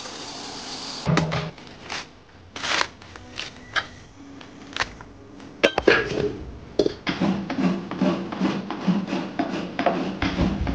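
Tap water running into a bowl for about a second, then scattered scrapes and knocks. From about seven seconds in, a steady rhythm of rasping strokes, about three a second, as a coconut half is scraped on a grater into a steel bowl.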